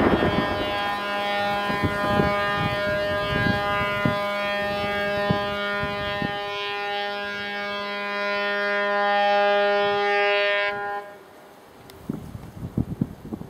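Steady siren holding one pitch for about eleven seconds and then cutting off suddenly, sounding over a coal strip-mine blast, with scattered low thumps underneath.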